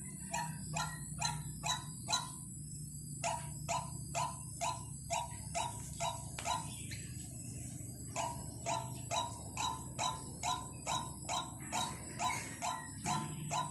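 White-breasted waterhen call, a lure recording: a steady run of short, harsh notes at about two a second, broken by brief pauses, over a low steady hum.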